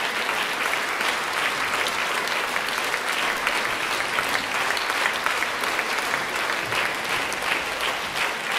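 Concert audience applauding steadily after a performance, a dense patter of many hands clapping.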